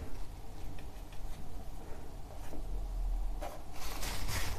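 Bristle brush strokes on a canvas: a few soft scratchy swishes, the strongest near the end, over a low steady hum.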